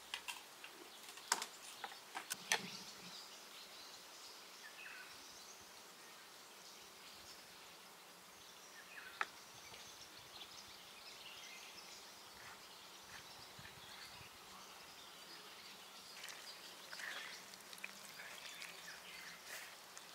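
Faint outdoor ambience with small birds chirping, broken by a few sharp clicks or knocks: two close together near the start and one about nine seconds in.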